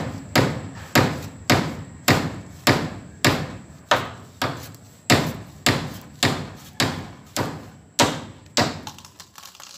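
Handsaw cutting through a papaya trunk: steady back-and-forth strokes, about two a second. The sawing stops about a second before the end.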